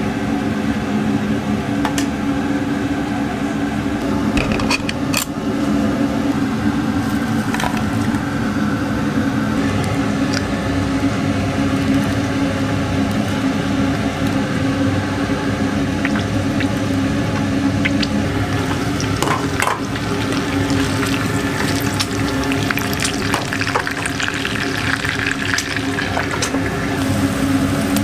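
An egg frying in oil in a small pan, sizzling steadily, with crackles that come thicker in the last few seconds, over a constant low hum.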